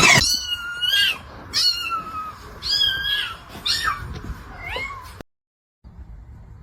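A cat meowing repeatedly, about five short high-pitched meows, cut off abruptly about five seconds in.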